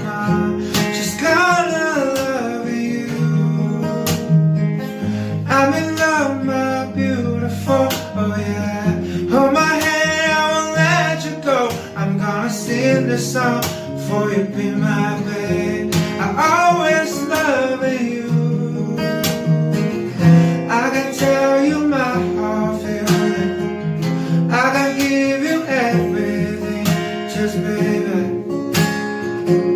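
Background music: acoustic guitar strumming with a singing voice.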